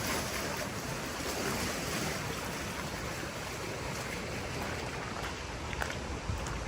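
Steady summer rain falling, an even hiss, with wind rumbling on the microphone.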